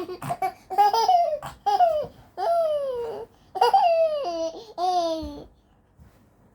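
A baby laughing and squealing: about six high-pitched calls in a row, each a half-second to a second long and most sliding down in pitch.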